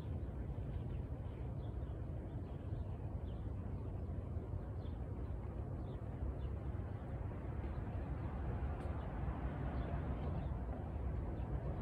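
Outdoor ambience: a steady low rumble with faint, scattered high chirps of birds.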